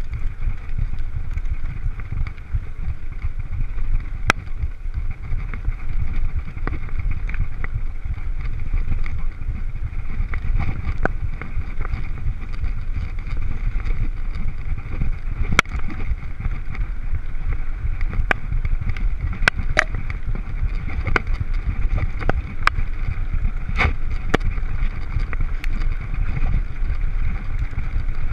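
Mountain bike riding fast over a rough grassy dirt track, with wind buffeting the camera's microphone as a steady low rumble. A steady hiss runs under scattered sharp clicks and rattles from the bike bouncing over bumps.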